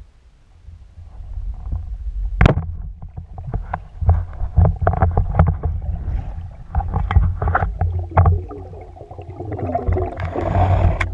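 Underwater noise picked up by a speargun-mounted camera: a low rumbling of moving water with many handling knocks and clicks from the gun, one sharp click about two seconds in. Near the end comes a rush of splashing and bubbling as the diver breaks toward the surface.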